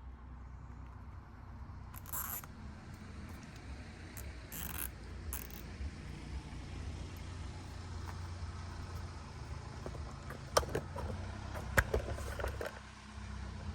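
A nylon cable tie being fed through and ratcheted tight around a bicycle's rear brake lever, with short scratchy zips and a cluster of sharp clicks late on, over a low steady rumble.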